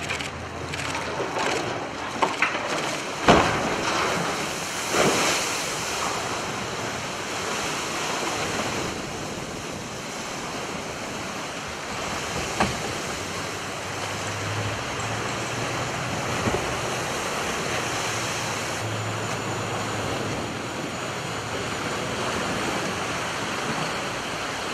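A cargo ship side-launched off its slipway into the water: a few sharp knocks in the first five seconds or so, then a long steady rush of splashing, churning water and waves.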